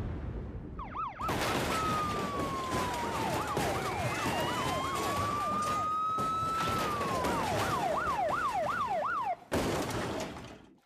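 Police car sirens, a fast yelp of about four sweeps a second and a slower rising and falling wail, sounding over a dense din of crashing metal as police cars pile up against the submarine. The sirens cut off suddenly near the end, and the crashing fades out after them.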